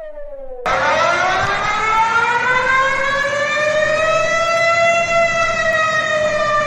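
A siren's falling wail is cut off about half a second in. A louder recording of a civil-defense warning siren starts at once, winding slowly up in pitch for about four seconds and then beginning to fall, with a steady hiss underneath.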